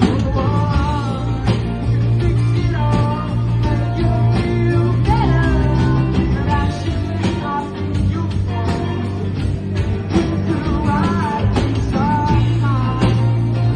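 Rock song playing with guitar, bass and steady drums, and a wavering melodic lead line over them.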